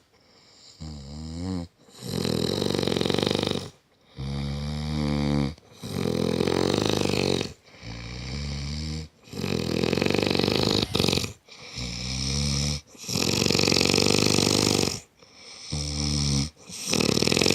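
A man snoring very loudly: harsh, rasping snores one after another, each lasting one to two seconds with short breaks between, several of them pitched and sliding up or down.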